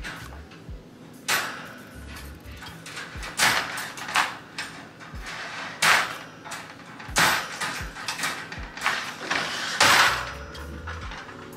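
Folding wire dog crate being set up: its metal wire panels rattle and clank against each other, with about half a dozen sharp clanks spread through.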